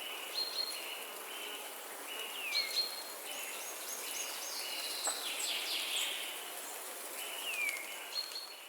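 Windy rainforest ambience: birds calling in repeated short whistled notes, a few sliding downward, over a steady hiss of wind. The sound begins to fade out near the end.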